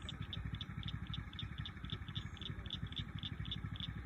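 Pond chorus of small calling animals: high chirps repeating about five times a second, over a steady low rumble.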